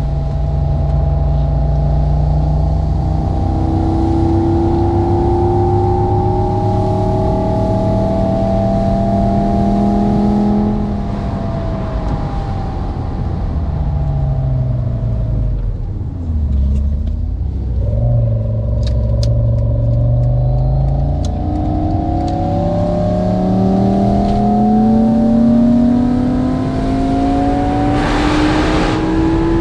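Simulated sports-car engine and exhaust sound from the Potenza Drive app, generated to follow the car's engine speed. It climbs in pitch under acceleration, falls away sharply about halfway through as the revs drop, then climbs steadily again, with a brief hiss near the end.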